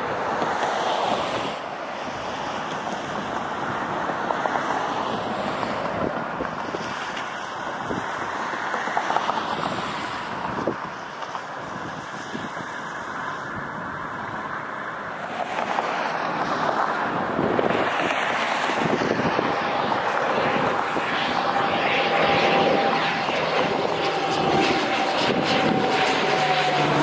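Boeing 737 airliner's jet engines as it lands, the noise swelling about halfway through as it rolls out with reverse thrust. Near the end a single-engine turboprop trainer, a T-6 Texan II, passes overhead with a steady whine that slowly falls in pitch.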